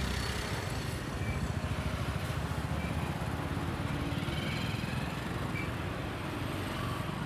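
Steady road-traffic noise with vehicle engines running, mostly a low rumble.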